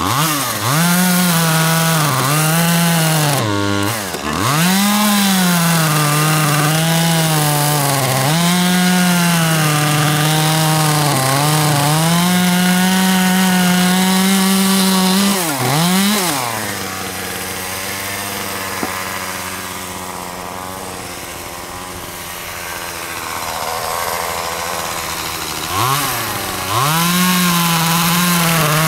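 Echo CS-2511T top-handle chainsaw, a small two-stroke, cutting through a dead log, its revs dipping and recovering several times as the chain bites. About halfway through it drops to a quieter idle for around ten seconds, then revs up again near the end.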